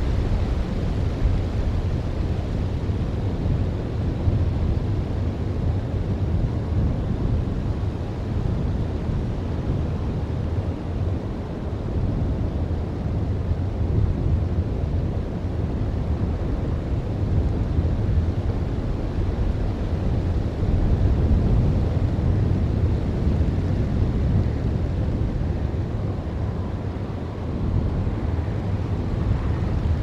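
Wind buffeting an outdoor camera microphone: a steady low rumble that swells and eases with the gusts.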